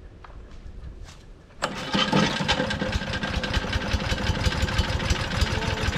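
Small gasoline engine of a wood chipper starting up: it catches suddenly about a second and a half in and keeps running at a fast, rattling beat.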